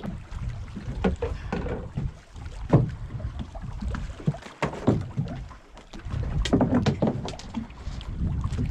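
Wind buffeting the microphone and water sloshing against the hull of a small open fishing boat, with scattered knocks and splashes as a baited hand line is dropped over the side and paid out.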